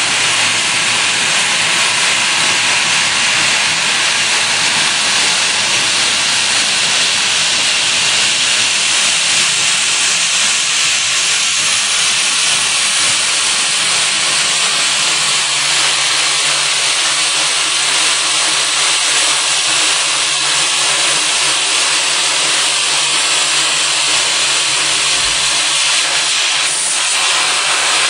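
Friction stir welding of an aluminium plate: a steady loud hiss from the compressed-air nozzle aimed at the rotating tool as it traverses the joint, with a low steady hum coming in about halfway through.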